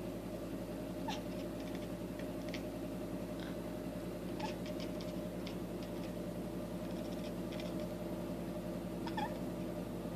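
A domestic cat making short, high, chirp-like calls, singly and in quick clusters, over a steady low background hum.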